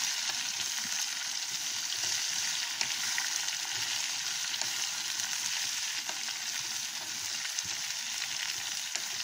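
Raw mango pieces sizzling steadily in hot oil in a steel kadai while being stirred with a spatula, with a few faint scrapes against the pan.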